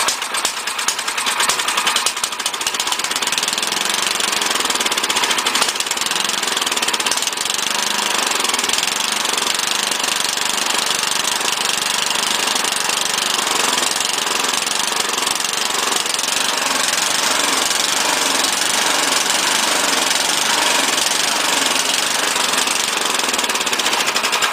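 Mastercraft snowblower's 10.5 hp Tecumseh Snow King engine running steadily after being started. It is not running well, a sign that the 12-year-old machine's carburetor needs cleaning.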